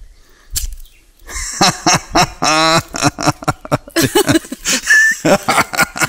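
A light tap about half a second in as two eggs are knocked together, followed by people laughing in rapid bursts.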